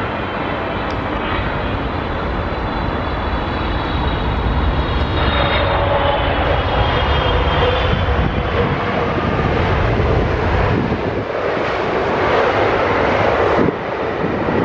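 A Qatar Airways Cargo Boeing 777 freighter's GE90 jet engines as it lands: a steady, loud rush of jet noise that builds through the middle and drops off suddenly near the end.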